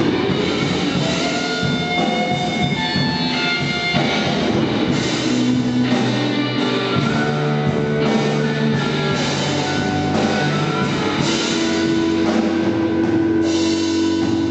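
Rock band playing: guitar notes held over a steady drum kit beat.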